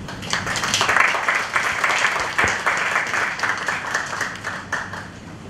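Audience applauding: dense clapping that begins right away, is loudest about a second in, then thins out and dies away near the end.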